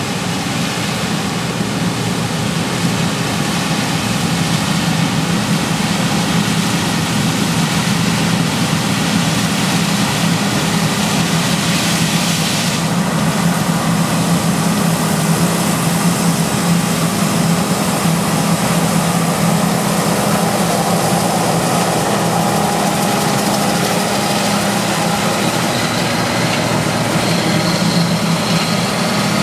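John Deere combine harvester working a corn field: its diesel engine and threshing machinery run steadily with a loud, low drone. A higher rushing hiss eases off about halfway through.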